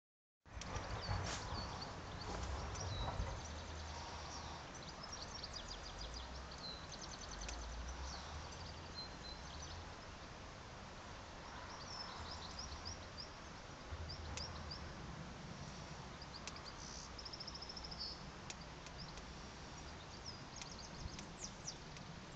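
Small birds singing and chirping in many short high calls and trills, over a steady outdoor hiss. Wind rumbles on the microphone, heaviest in the first few seconds.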